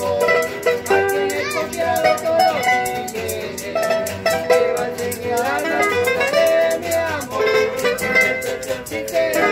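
Several acoustic guitars playing a song together, one picking a wavering melody over the others' strummed chords, with a fast, even run of sharp strokes that keeps the rhythm.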